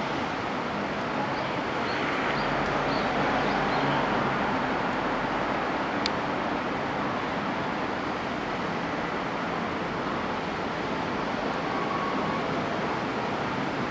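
Hakone Tozan Railway electric train passing slowly, a steady running noise without clear tones. A few faint high chirps come in the first few seconds, and a single sharp click about six seconds in.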